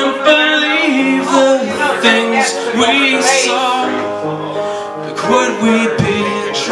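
A man singing to his own piano accompaniment, with held piano notes under the voice.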